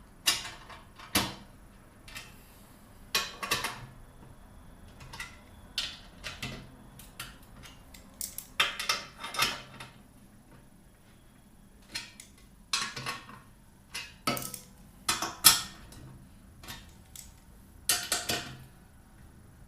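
Hand tools working the four screws that fix the column to the aluminium frame: irregular metallic clicks, clinks and short clattering bursts with pauses between them.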